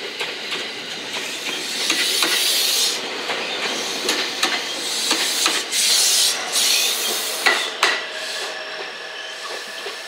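JR West 227 series two-car electric multiple unit passing close by at low speed on a curve, its wheels clicking over the rail joints, with two spells of loud hiss as the cars go by. A thin steady whine remains near the end as the train moves away.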